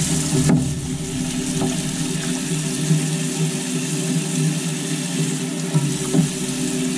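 Kitchen tap running into a sink, the water splashing over a freshly cast aluminium cylinder head as it is rinsed clean of investment plaster, over a steady low hum.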